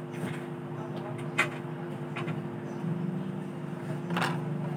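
Steady hum over a low background rumble, with two short clicks, one about a second and a half in and one near the end.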